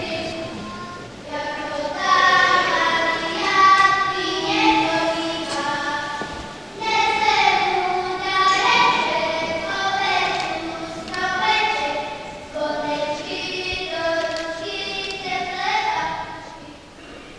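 A children's choir singing a melody in short phrases, with brief pauses between them.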